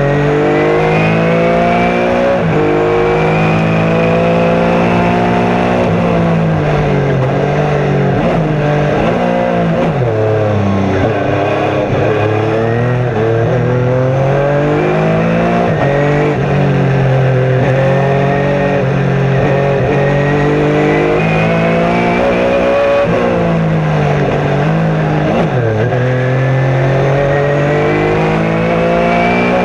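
Chevrolet Beretta Trans-Am race car's V8 engine at racing speed, heard onboard. The revs climb through the gears and fall away under braking for the corners, several times over.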